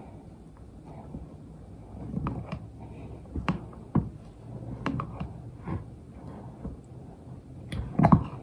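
Spoon stirring chili in a pan, with irregular clinks and knocks of the spoon against the pan, the loudest near the end.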